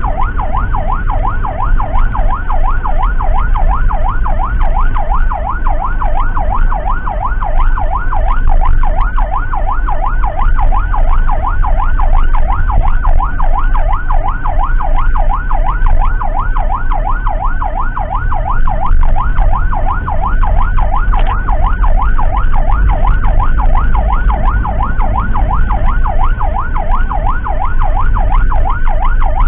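Emergency siren on a fast yelp, rising and falling about three to four times a second without a break, over a heavy low rumble from the moving vehicle.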